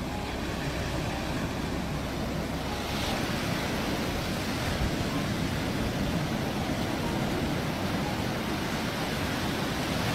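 Ocean surf breaking and washing up a sandy beach: a steady rushing noise that swells a little a few seconds in.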